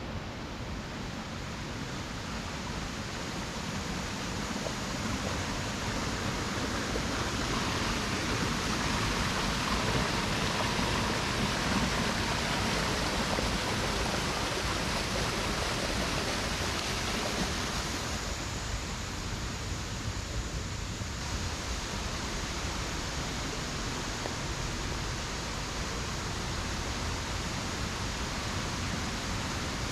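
Steady rush of flowing stream water, growing louder for a while and then easing back a little.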